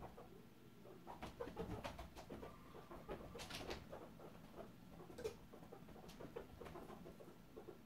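Young guinea pigs scampering on a shag rug: faint, irregular pattering and scuffling of small paws, with brief soft squeaks or chirps mixed in.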